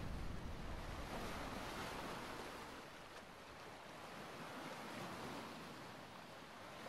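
Faint steady outdoor rushing noise, like wind. A low rumble dies away over the first couple of seconds.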